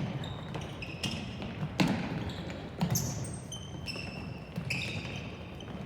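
A ball bouncing with dull thumps about a second apart, and rubber-soled shoes squeaking briefly on a hard court floor.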